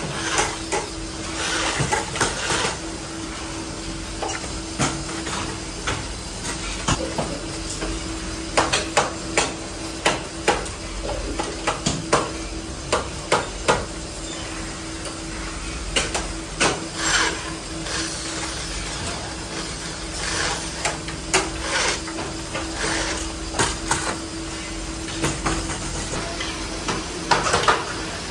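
Irregular metallic clinks and knocks, some several in quick succession, over a steady hum and a background hiss.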